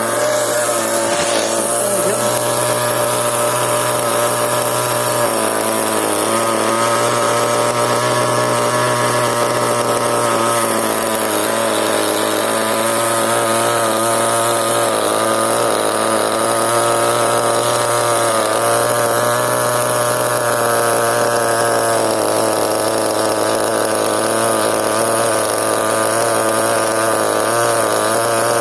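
CEN RC monster truck's small nitro engine running continuously, its buzzing pitch wavering gently up and down.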